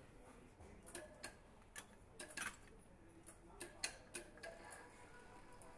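Faint, irregular clicks and ticks of tools and fixtures being worked on a bare engine block at an assembly station, the loudest a little past two seconds in and just before four seconds.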